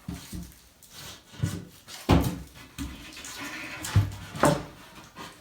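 Cedar wall plank knocking and rubbing against the wall as it is fitted into place: a few wooden knocks, the loudest about four seconds in, with some scraping between them.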